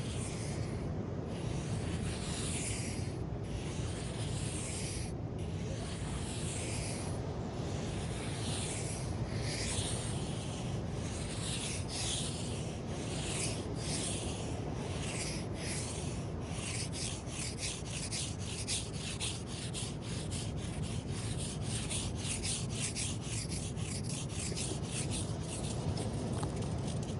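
Sand being scratched in repeated strokes, slow and uneven at first, then quickening to about four strokes a second from about two-thirds of the way in. A steady low surf noise runs underneath.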